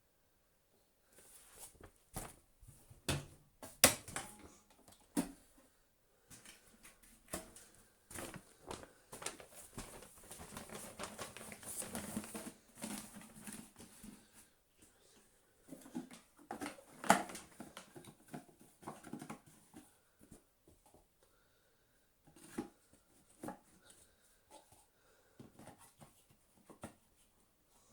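Irregular knocks, clicks and rustling, with no motor running.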